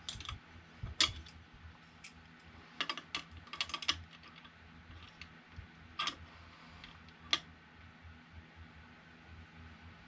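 Scattered light clicks and taps of a wrench and metal parts being handled while an eccentric nut on a 3D printer's frame is adjusted. The sharpest click comes about a second in, a quick cluster follows around three to four seconds, and two more sharp clicks come a little after six and seven seconds.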